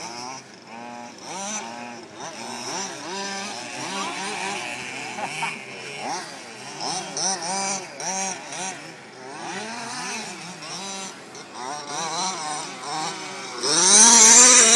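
Small two-stroke petrol engines of 1/5-scale HPI Baja RC buggies racing, revving up and dropping off again and again through the corners. Near the end one buggy passes close by and gets loud, its pitch rising as it accelerates.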